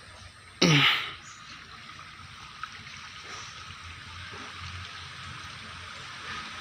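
River water running with a steady hiss. About half a second in there is a short loud sound that drops steeply in pitch.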